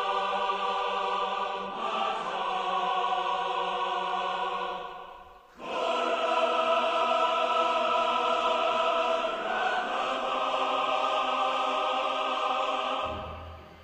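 Choral music: long held chords, two sustained phrases of about six to seven seconds each with a short break between them. The music stops a little before the end, leaving a faint low hum.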